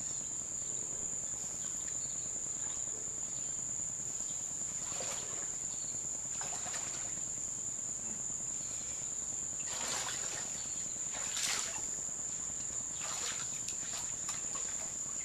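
Footsteps wading through shallow water, splashing several times, over a steady high-pitched insect drone.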